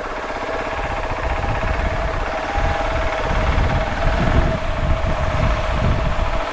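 KTM 690 SMC R supermoto's single-cylinder engine running at low revs, with an uneven low pulsing beat and a steady thin tone above it.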